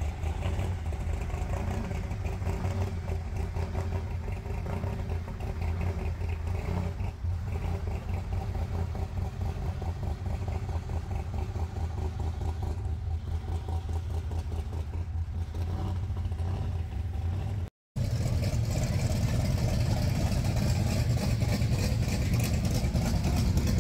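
Car engine idling with a steady low hum; after an abrupt break about eighteen seconds in, the engine sound comes back louder.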